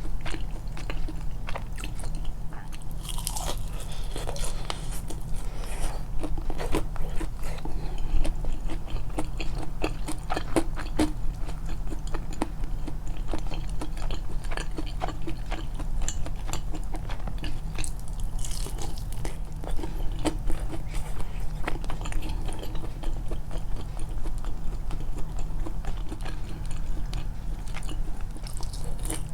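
Close-miked chewing and biting of food, with dense irregular wet clicks and some crunch, over a steady low hum.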